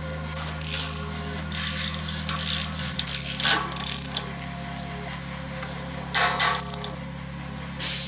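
Mechanical ratcheting clicks from bike-building work, in several short bursts of about half a second each, over steady low held tones.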